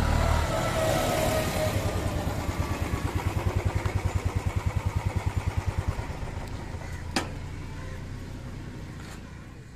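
A vehicle engine running close by, with a fast throb of about seven or eight beats a second a few seconds in, then fading steadily away. A sharp click sounds about seven seconds in.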